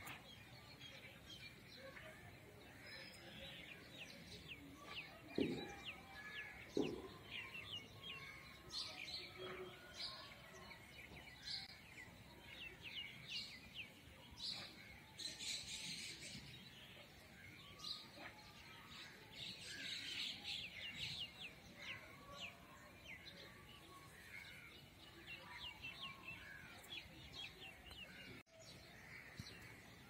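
Small birds chirping and twittering in quick, high notes, with thicker flurries of chirps near the middle. Two louder, lower sounds stand out about five and a half and seven seconds in.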